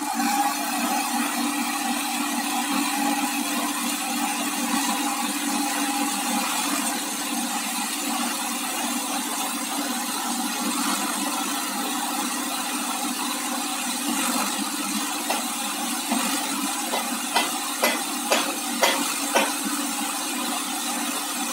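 Farmtrac 60 tractor's three-cylinder diesel engine running steadily under load as the tractor sits stuck, its rear wheel dug into loose grey sand. A few sharp knocks come in quick succession near the end.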